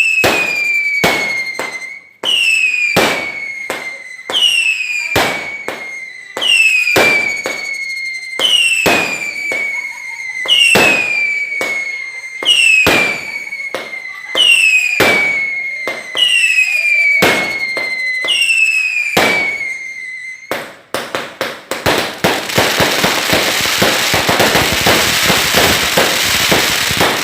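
Firework barrage launching a series of whistling shots: about ten whistles, each falling in pitch and lasting nearly two seconds, one after another with sharp bangs among them. About two-thirds of the way through, the whistles give way to a dense, continuous crackling.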